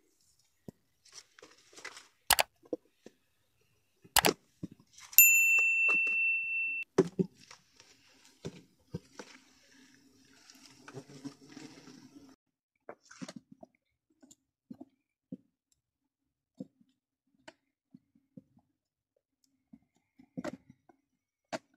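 Hand work on a wooden stingless-bee hive with a knife: two sharp knocks, then a metal clink that rings on and fades over about a second and a half, followed by faint scraping and scattered small clicks as the lid is taken off and the knife works at the comb.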